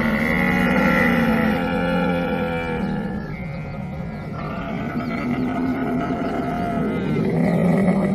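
Camel bellowing in one long, drawn-out groan, loudest at the start and swelling again near the end.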